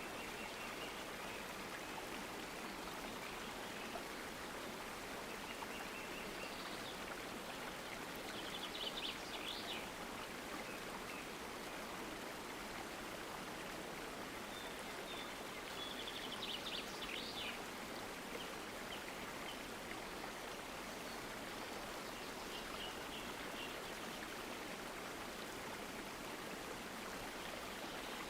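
Running water from a stream flowing steadily, with small birds chirping over it: quick runs of high notes about a third of the way in and again just past halfway, and a softer twitter near the end.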